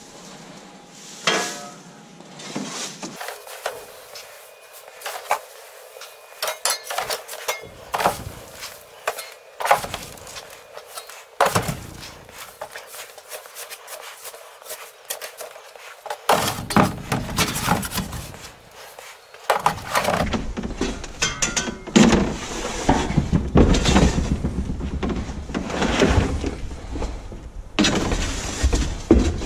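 Chopped straw being scooped from a plastic tub and packed down into a wire-mesh basket with a long-handled tool: irregular rustling with frequent knocks and clinks of the tool against the tub and the wire mesh. It gets busier and louder about halfway through.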